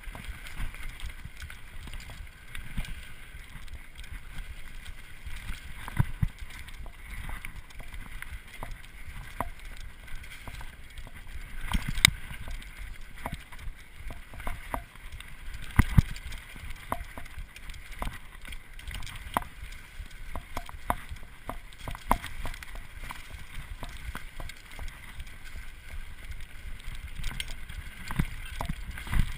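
Mountain bike ridden along a dirt singletrack strewn with dry leaves: a steady rolling hiss from the tyres, with frequent knocks and rattles of the bike over bumps. The two loudest jolts come about twelve and sixteen seconds in.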